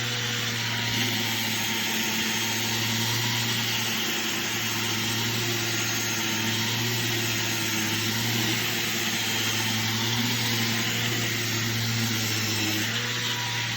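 Electric sander running steadily while sanding weatherboards, a constant motor hum under a broad rasp. Near the end the motor is switched off and its hum starts to fall in pitch as it winds down.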